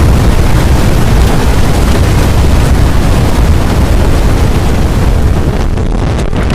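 Strong, tornado-like wind: a loud, continuous rush of noise with a deep low rumble. Its upper hiss eases briefly about five and a half seconds in.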